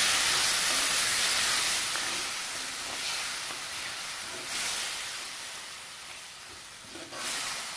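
Diced watermelon rind added to hot oil and spices in a kadhai, sizzling loudly at first and then gradually dying down, with a couple of brief flare-ups.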